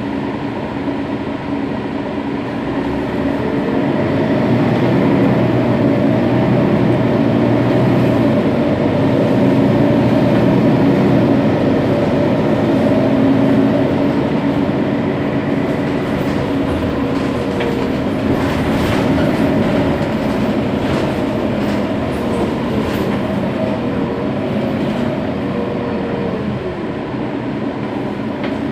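Mercedes-Benz Citaro Facelift city bus's OM 457 hLA straight-six diesel idling with a steady hum. It grows louder a few seconds in and eases off again in the second half, with a few light clicks.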